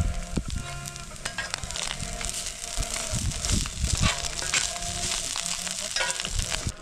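Food sizzling over a wood campfire: a steady hiss with many small crackles and pops.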